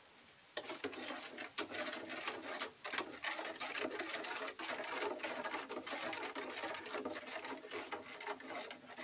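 Metal spoon stirring sugar into juice in a metal pot: rapid clinking and scraping against the pot's sides, starting about half a second in.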